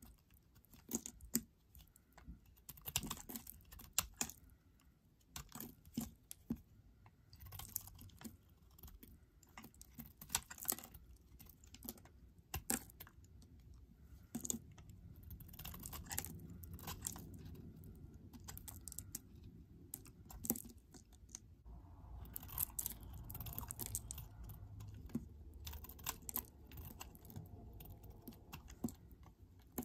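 Snap-off utility knife cutting and shaving a bar of speckled handmade soap: irregular sharp clicks and crackles as the blade pushes through and pieces break away. A faint low rumble sits underneath through the second half.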